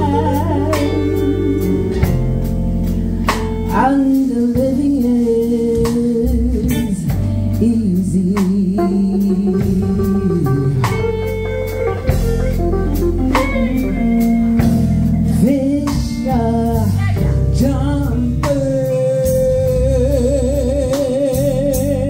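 Live band: a woman singing into a microphone over electric guitar and drum kit, with a long wavering held note near the end.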